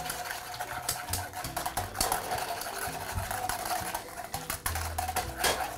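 Fast stirring in a metal saucepan: a quick, irregular run of clinks and scrapes as a metal utensil works through an egg-and-lemon sauce on the stove.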